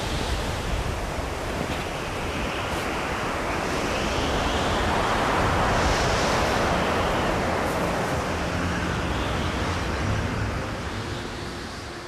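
Blizzard wind blowing in gusts. It swells to its loudest around the middle and eases off near the end.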